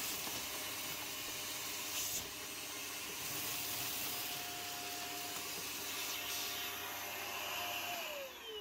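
Vacuum cleaner running steadily with a steady motor whine as its nozzle sucks rust flakes and debris off a corroded car floor pan. Near the end it is switched off and the whine falls in pitch as the motor spins down.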